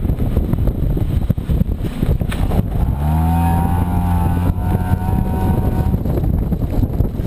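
Hyundai Elantra's stock exhaust, fitted with a test pipe in place of the second catalytic converter, rumbling as the car drives, with wind buffeting the microphone. About three seconds in, the note settles into a steady drone for about three seconds, then goes back to a rougher rumble.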